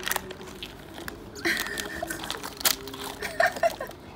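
Slime squelching as a Goo Goo Galaxy squishy toy is squeezed and the goo is pushed out inside its plastic wrap, with crackly clicks and small wet pops.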